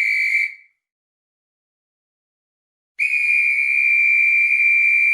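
Whistle blown in two blasts at one steady pitch: a short blast ending about half a second in, then a long, held blast starting about three seconds in.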